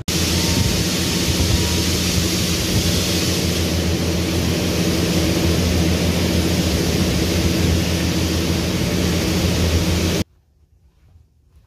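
Loud steady machinery noise with a low hum under it, which cuts off suddenly about ten seconds in.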